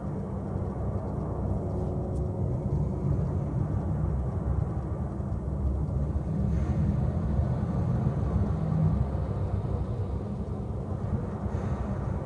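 Loud, steady low rumble of room background noise picked up by the camera's microphone.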